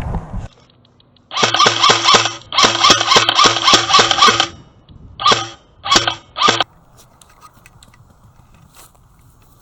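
Airsoft electric gun firing on full auto in four bursts: two long strings of rapid, evenly repeating shots, then two short ones.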